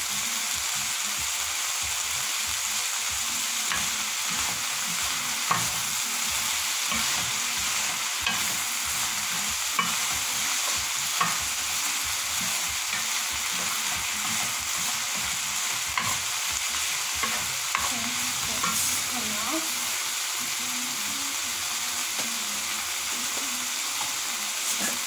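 Sliced vegetables sizzling steadily in a pan over high heat while a wooden spatula stirs them, with scattered light clicks and scrapes of the spatula against the pan.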